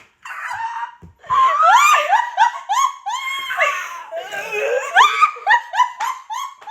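A girl laughing hard and high-pitched, in quick repeated bursts with rising squeals.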